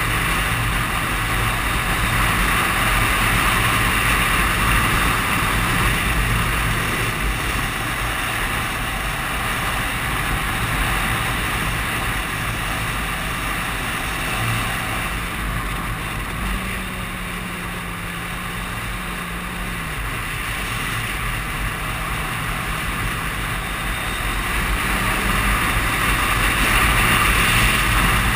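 Suzuki Katana 750 inline-four motorcycle engine running at road speed under steady wind rush over the helmet-mounted microphone. The engine note steps up in pitch about halfway through and drops back a few seconds later.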